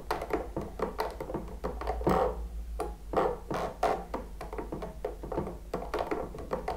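Irregular plastic clicks, taps and scraping from an Eachine TX16S radio transmitter as its gimbal sticks, pots and sliders are worked by hand out to their end stops during calibration, with short ringing sounds among the clicks.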